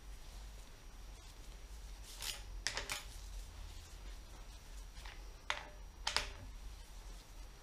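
A few short metallic clinks of a steel spanner working on the connecting-rod cap bolts of a Rolls-Royce Merlin crankshaft assembly as they are done up, in two small groups a few seconds apart.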